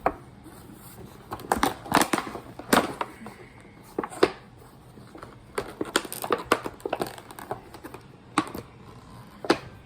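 Small scissors cutting and prying at a doll box's cardboard and plastic packaging: irregular snips, clicks and crinkles, several of them sharp and louder.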